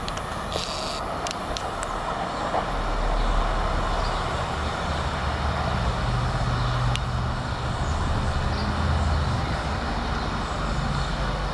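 SEPTA Silverliner IV electric railcar moving away along the track, a steady low hum and rumble with a few faint clicks.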